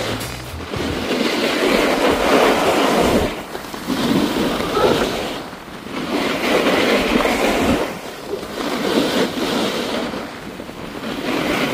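Snowboard edges carving across groomed snow, a rasping hiss that swells and fades with each turn about every two seconds, with wind rushing past.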